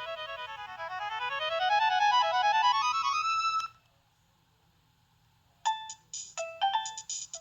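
Nokia 6610 mobile phone playing its preloaded ringtones. A fast run of electronic notes climbs in pitch and grows louder, then cuts off suddenly a little past halfway. After about two seconds of silence, the next ringtone starts with short, bright, staccato notes.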